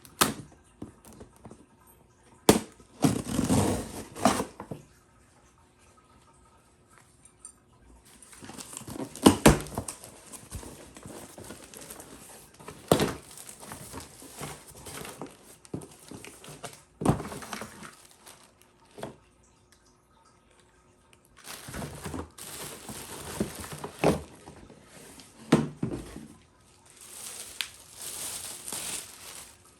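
Packaging being handled during an unboxing: plastic and cardboard rustling and crinkling in irregular bursts, with several sharp knocks and short quiet gaps in between.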